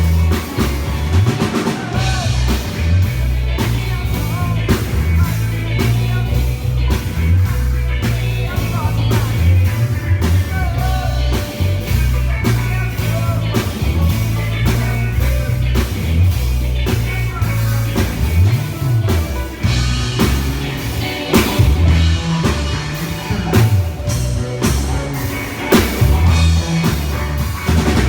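Live rock band playing at a soundcheck: drum kit, a heavy bass line and guitar, continuous and loud.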